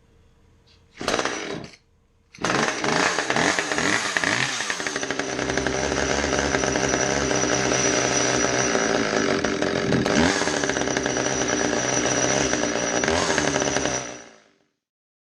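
Husqvarna T435 top-handle chainsaw's small two-stroke engine: a brief burst about a second in, then it starts and runs, revving up and down at times, and stops a second or so before the end. It runs after repair of a no-start caused by the fuel filter coming off the fuel line in the tank.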